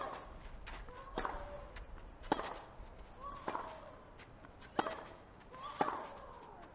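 Tennis rally: racquets striking the ball back and forth, six sharp hits about a second apart, each followed by a brief pitched sound.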